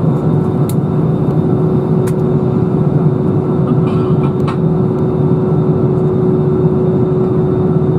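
Cabin noise inside an Airbus A320-214 taxiing, heard from a window seat over the wing: a steady low rumble from its CFM56 engines running near idle, with a constant humming tone above it.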